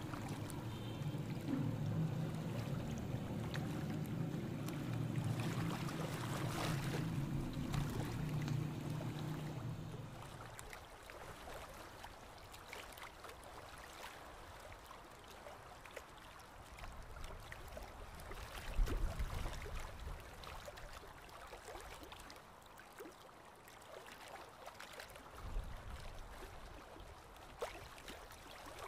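A steady low hum for about the first ten seconds, then onions frying in a pot, sizzling faintly as a spatula stirs and scrapes them. Two dull knocks come later on.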